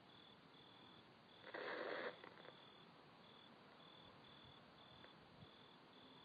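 Faint cricket chirping, short even chirps about twice a second, with a brief noisy rustle about one and a half seconds in.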